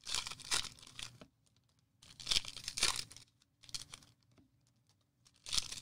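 Crinkly plastic card-pack wrapping being torn and crumpled by hand, in three bursts about a second long each with a smaller rustle between.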